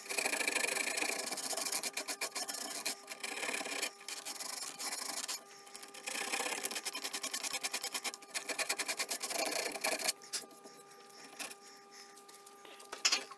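Hand sanding of reclaimed timber with a folded sheet of sandpaper, rubbed quickly back and forth inside a curved cut-out in several runs with short pauses. The rubbing stops about ten seconds in while the paper is refolded.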